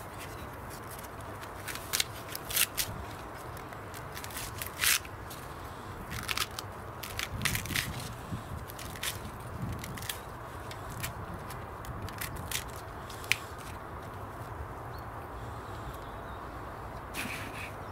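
Green husks being torn and snapped off miniature sweet corn cobs by hand: irregular crackling and tearing, with a few sharper snaps in the first five seconds.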